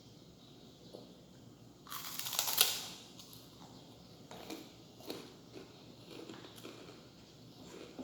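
Crunching from eating close to the microphone: one loud crackly crunch about two seconds in, then a few short, softer ones.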